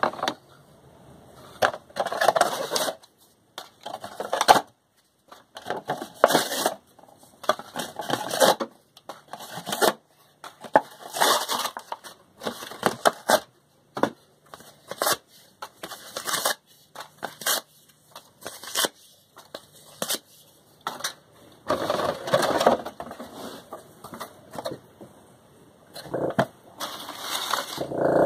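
Thin cardboard packaging boxes being ripped apart by hand: repeated tearing and crackling of paperboard in irregular bursts with short pauses between them.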